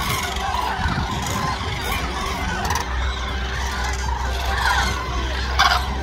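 A large flock of common cranes calling, many trumpeting calls overlapping in a constant chorus, with one louder call near the end. A steady low rumble joins underneath from about halfway.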